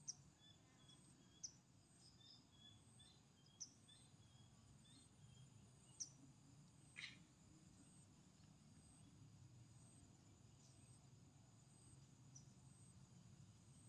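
Near silence with faint outdoor ambience: a steady high insect trill pulsing throughout, a few short high bird chirps in the first half, and one brief falling call about seven seconds in.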